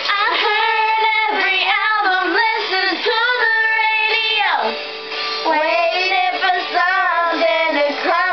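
Two girls singing together karaoke-style into handheld microphones, over a recorded backing song. The singing dips briefly about halfway through.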